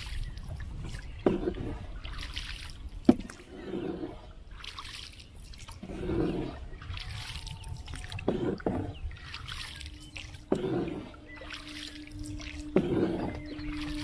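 Bamboo oar paddling a wooden country boat: slow strokes about every two seconds, each a wet swish and splash with dripping in between, and several sharp knocks of the oar against the wooden hull. A faint steady hum joins in during the second half.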